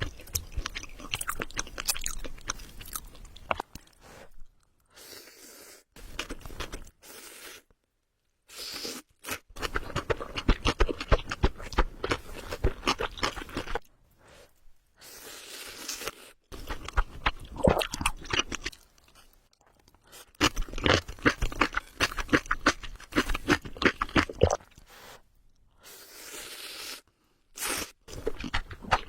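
Close-miked eating of spicy ramen: wet, crunchy chewing clicks that come in bursts of several seconds, separated by short pauses.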